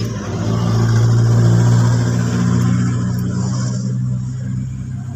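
A motor vehicle engine running off-camera with a steady low hum, growing louder about a second in and fading toward the end, as if passing by.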